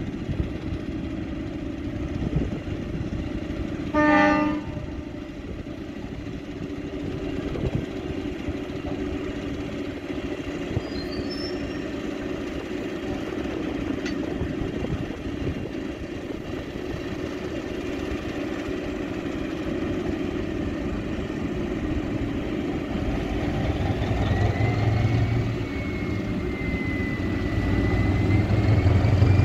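Fablok-built diesel locomotive pulling a passenger train slowly along the platform, its engine running steadily, with one short horn toot about four seconds in. Near the end the engine grows louder and a high whine wavers up and down in pitch.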